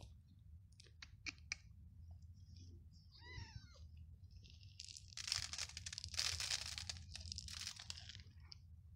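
A tabby kitten gives one short meow about three seconds in, after a few faint clicks. Near the end comes a louder rustling, crinkling noise lasting a few seconds.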